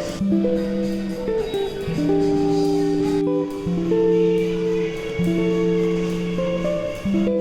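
Background music: guitar chords, mostly plucked, with held notes changing about every second.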